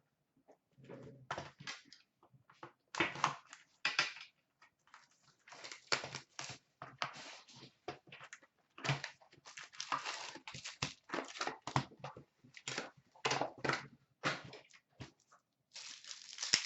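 Trading-card packs and box packaging being torn open and handled: irregular crinkling and tearing bursts of foil and paper wrappers, stopping and starting every fraction of a second.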